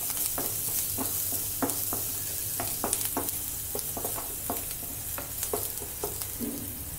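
Chopped garlic sizzling in hot oil in a pan while a spatula stirs it, knocking and scraping against the pan about twice a second.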